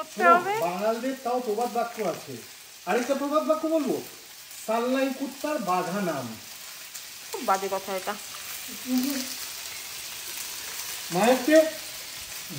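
A man's voice in short phrases with pauses, over the faint, steady sizzle of vegetables frying in a hot wok.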